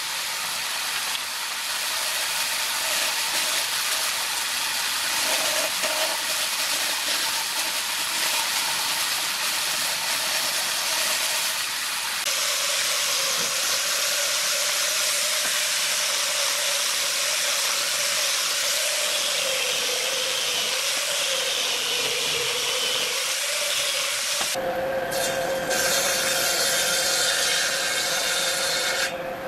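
Band saw running through wood with a steady hiss as it cuts a curve. About twelve seconds in, an angle grinder with a sanding disc takes over, running with a steady tone as it sands the curved wood. Near the end, a different saw machine with a thin vertical blade runs with a fuller, lower sound.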